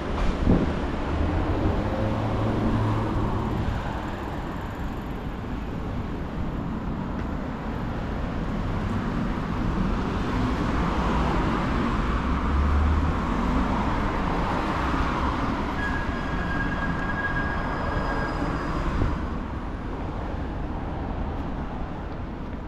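A passing vehicle's rushing noise in the street, swelling around the middle and fading. A brief high steady whine comes about two-thirds of the way through.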